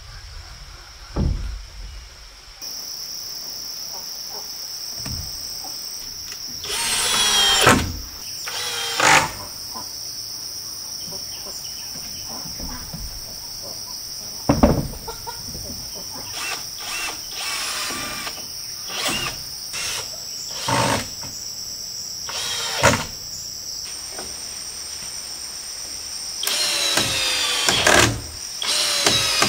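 A steady high-pitched insect drone, such as cicadas or crickets, with intermittent knocks and short bursts of hand-tool noise from building work. The loudest bursts come about a quarter of the way in and again near the end.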